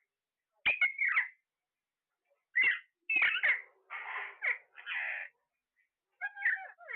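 Parrot calling: a string of short squawks and gliding chirps in separate bursts, with a pair of harsh, raspy screeches in the middle.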